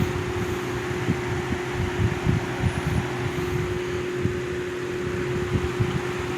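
Lasko 3733 plastic box fan running on high speed: a steady rush of air with a steady hum running through it, and an uneven low rumble of the air stream on the microphone.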